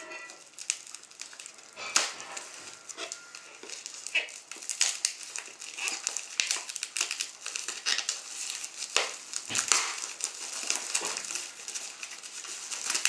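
Packaging being torn open and crinkled by hand: a dense run of irregular crackles and rustles.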